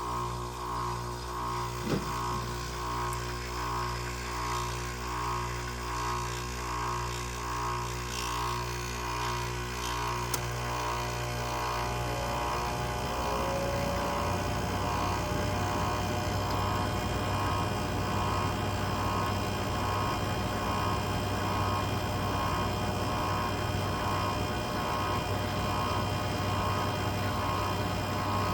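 1999 Whirlpool 5000 BTU window air conditioner running on low fan shortly after start-up: its LG rotary compressor and buzzy fan motor make a steady hum with a whine that wavers about once a second. A single click comes about two seconds in. About halfway through there is a brief rising tone, and the hum turns rougher and a little louder. The owner suspects the unit has a low refrigerant charge.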